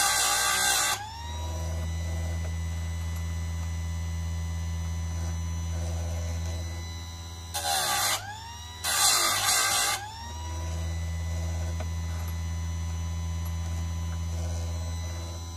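Einhell electric chain sharpener's motor running with a steady hum and whine, its grinding wheel biting into the teeth of a saw chain with harsh grinding at the start, at about 8 s, and again from about 9 to 10 s. Under each grind the motor drops in pitch, then winds back up when the wheel is lifted.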